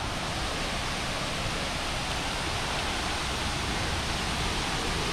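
Eagle Falls waterfall: a steady rush of falling water.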